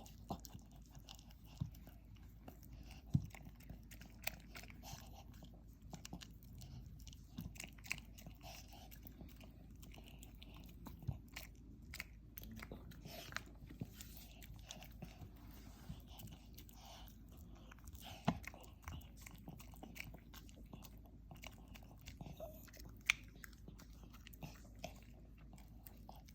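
Maltese dog eating a cake: faint, irregular chewing and biting with many small clicks, and a few sharper clicks now and then.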